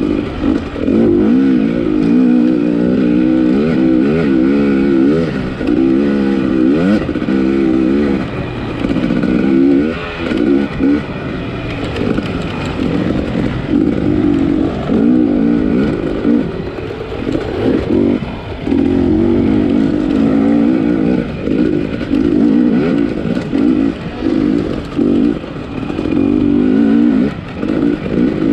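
250 cc motocross bike engine under race throttle, its pitch repeatedly climbing and falling with frequent short drops in loudness.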